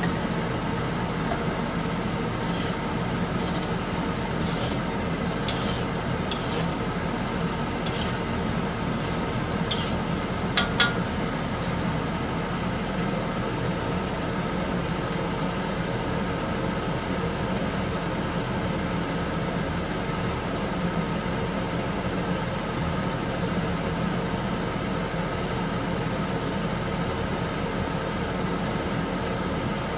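Beef fat boiling in water in a wok while it renders into tallow, over a steady mechanical hum. Sharp pops and crackles come through in the first dozen seconds, the loudest pair about ten to eleven seconds in.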